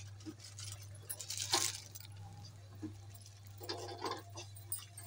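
Spatula stirring and scraping a thick, wet yogurt masala in a steel pot, with soft squelches and an occasional clink or scrape against the pot, loudest about one and a half seconds in. A steady low hum runs underneath.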